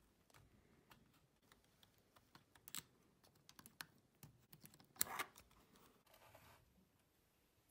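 Faint, irregular small clicks and taps from a Sony WM-190 Walkman's plastic and metal casing being handled and a thin tool worked at its battery-compartment corner, with a sharper click about five seconds in and a brief scrape after it.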